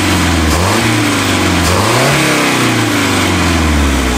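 Boat's sterndrive engine running on its first revival after years of neglect, revving up and then dropping back about halfway through. It is running well.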